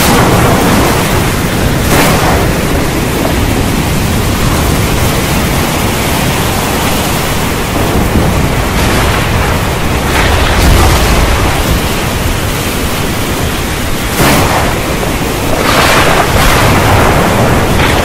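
Thunderstorm: heavy rain hissing steadily, broken by several claps of thunder. There is one at the start, another about two seconds in, one near the middle followed by a deep rolling rumble, and a sharp crack a few seconds before the end that rumbles on.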